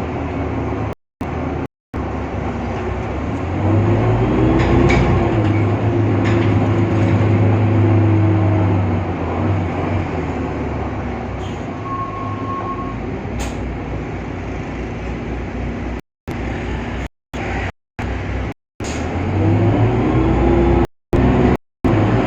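Irisbus Citelis CNG city bus running, its Cursor 8 engine note rising about four seconds in as it pulls away, holding, then easing off and building again near the end, with a whine like a train's. A short beep sounds near the middle, and the audio cuts out completely for moments several times.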